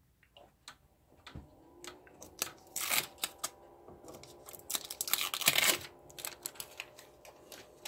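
Protective plastic film being peeled off a 3D printer's touchscreen: crackly tearing and crinkling in two main stretches, with scattered clicks. From about a second and a half in, a faint steady hum runs underneath as the just-powered printer starts up.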